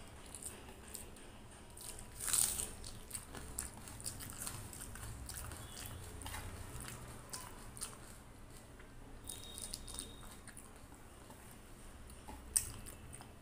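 Close-miked eating sounds: fingers mixing and squeezing rice with kadhi on a steel plate, with small wet clicks and chewing. Louder sharp sounds come about two seconds in and again near the end.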